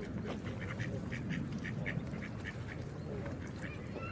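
Geese calling in a quick series of short, clipped honks, several a second, over a steady low rush of water.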